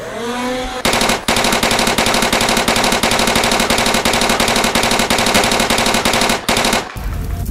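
Nerf Hyperfire motorized dart blaster: its flywheel motor whines up during the first second, then it fires full-auto in a fast, steady stream of darts for about six seconds before stopping abruptly. A low rumble follows near the end.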